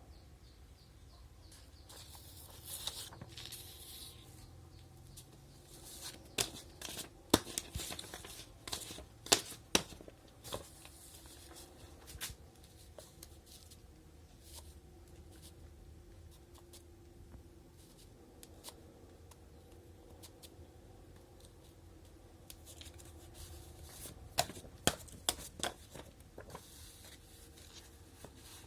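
Sheets of animation paper being handled and rustled, with two runs of sharp clacks from the paper hole-punching machine, the first about six seconds in and the second near the end.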